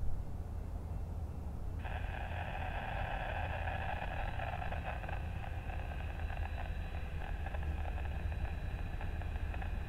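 A BNSF diesel locomotive's multi-chime air horn starts suddenly about two seconds in and is held as one long blast, over a low rumble from the approaching train.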